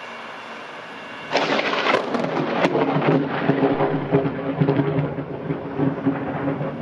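Thunder from a close lightning strike: a sudden crackling crash a little over a second in, then several seconds of loud, crackling rumble.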